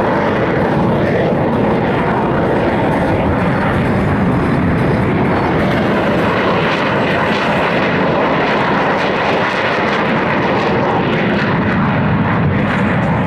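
Loud, steady engine noise of military jet aircraft in flight.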